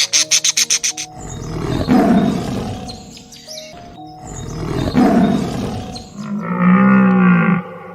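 A large animal roaring twice, each roar long and rough, after a burst of rapid bird chirps in the first second. Near the end comes a long, low, pitched animal call.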